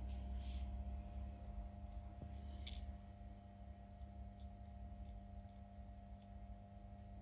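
Faint, scattered light clicks of small repair tools, with one sharper click nearly three seconds in, over a steady electrical hum.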